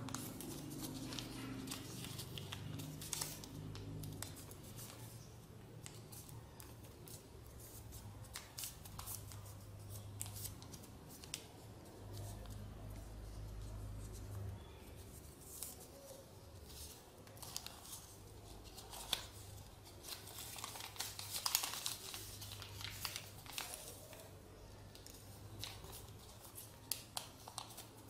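A sheet of paper rustling and crinkling in short, irregular bursts as hands fold and crease it into an origami crane, over a low steady hum.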